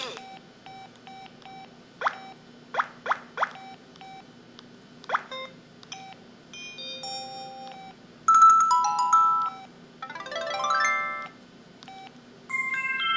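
IM-6400 mobile phone's built-in sound effects played in turn: short beeps and key tones, a few quick swishes, then brief melodic jingles, one stepping up in pitch near the end.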